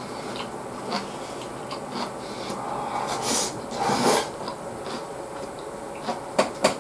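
Eating sounds: light wooden chopsticks scraping and clicking against a takeout gyudon bowl, with chewing and two short slurps about three and four seconds in as food goes to the mouth, and a few sharp clicks near the end.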